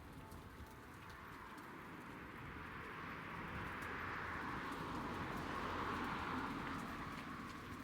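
Outdoor background noise: a steady hiss that grows louder toward the middle and eases near the end, over a low rumble.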